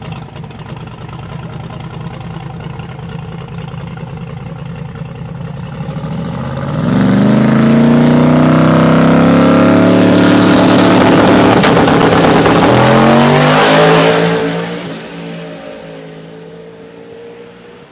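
Radial-tire drag car's engine running at the line, then revving sharply about six seconds in and staying loud at high revs for several seconds. The engine sound then fades away as the car runs off down the drag strip.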